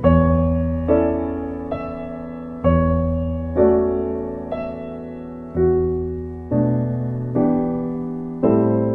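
Slow, gentle solo piano music: soft notes and chords struck about once a second, each ringing and fading before the next.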